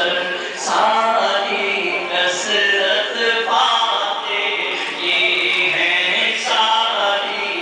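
A man's voice chanting an Urdu naat (devotional poem in praise of the Prophet) unaccompanied into a microphone, in long held, melismatic phrases.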